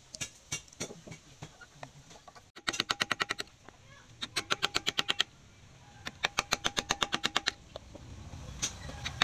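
Rapid light hammer taps on steel, about a dozen a second. A few scattered taps come first, then three runs of about a second each, with a faint ring under the strikes.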